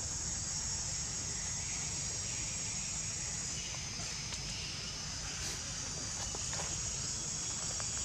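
Steady, high-pitched drone of insects in the trees, with a low rumble underneath and a few faint ticks near the end.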